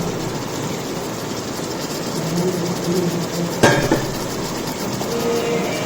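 Onions and tomatoes frying in oil in a large biryani pot: a steady sizzle, with one sharp knock of a ladle against the pot a little over halfway through.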